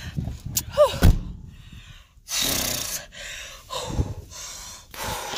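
A person breathing out hard through pursed lips in long, noisy exhales, with a short vocal sound and a thump about a second in.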